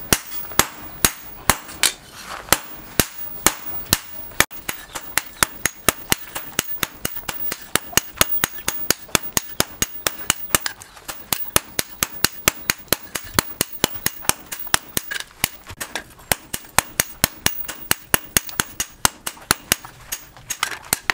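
Hand-forging: a hammer strikes a red-hot steel billhook blade on a steel post anvil in a steady run of sharp metallic blows. The blows come about two a second at first, then quicken to about three or four a second from around four seconds in.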